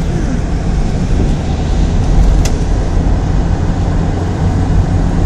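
Car driving, heard from inside the cabin: a steady low drone of engine and road noise. There is one short click a little over two seconds in.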